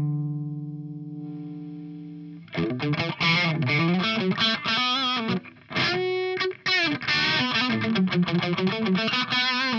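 Electric guitar played through a Joyo JF-16 British Sound overdrive pedal, engaged and giving a distorted amp-like tone. A held note rings and fades for about two and a half seconds, then a fast lick of quick picked notes follows, with a brief held note in the middle, and cuts off near the end.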